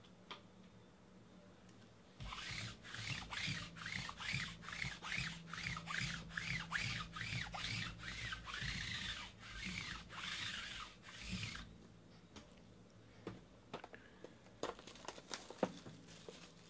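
A lint roller rolled back and forth over the felt-covered table, making a rhythmic sticky rubbing at about two strokes a second for roughly nine seconds. After it, a few light clicks and crinkles as the plastic wrap is pulled off a card box.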